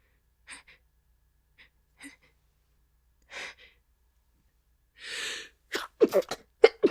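A woman's faint, catching breaths build to a long gasping inhale, then about three stifled sneezes in quick succession near the end.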